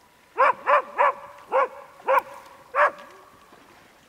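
A frightened dog stranded across the river barking six times in quick succession, with a thin whine held beneath the later barks.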